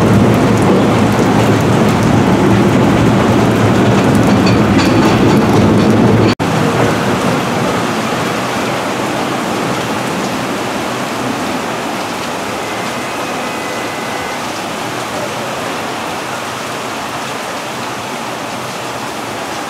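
A vintage subway train running past on the rails in heavy rain for about six seconds. After a sudden break, heavy rain pours steadily onto a station canopy and the tracks.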